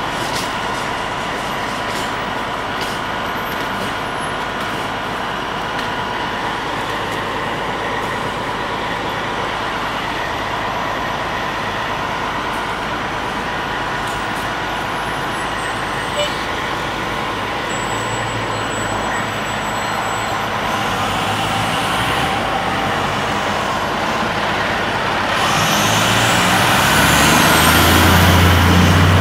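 Heavy diesel truck engines idling steadily. Near the end one engine grows louder and climbs in pitch as it accelerates, with a rising whine.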